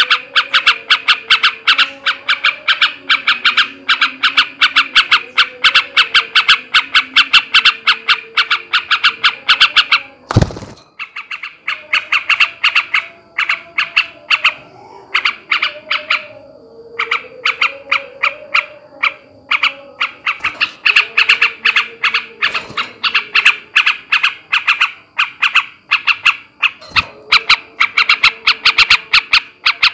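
Male sooty-headed bulbul (trucukan) chattering in fast runs of short, harsh notes, its 'ngebren' call used to rouse other bulbuls. About ten seconds in a single knock breaks it off briefly; the notes come sparser for a while, then pick up into fast runs again.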